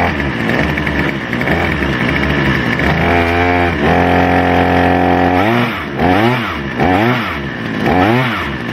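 Earthquake Viper two-stroke chainsaw engine running after being freed up: a wavering idle, a rev up about three seconds in held high for over a second, then a quick series of throttle blips sweeping up and down.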